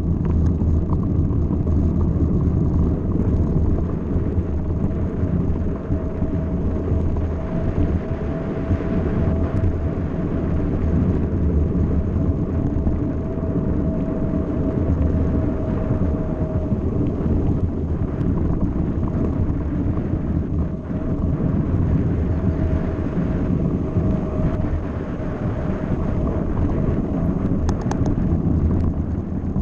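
Steady rumble of a mountain bike rolling fast over a gravel track, mixed with wind on the bike-mounted camera's microphone, and a faint whistling tone through much of the middle.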